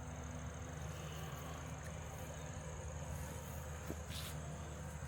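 A small engine idling steadily as a low hum, with a steady high insect trill over it.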